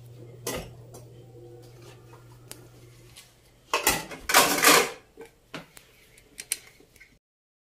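Dishes and cutlery clattering as they are handled and washed, with the loudest clatter about four seconds in and a few sharp clinks after it. A steady low hum runs under the first three seconds.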